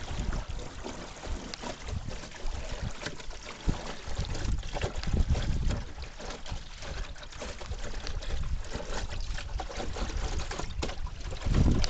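Water rushing and splashing along the hull of a homemade Wastwater 16 canoe yawl sailing under full sail through choppy water, with irregular gusts of wind buffeting the microphone.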